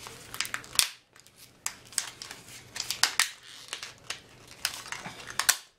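Scissors snipping through a floppy disk's thin magnetic media and plastic: an irregular series of short, sharp snips.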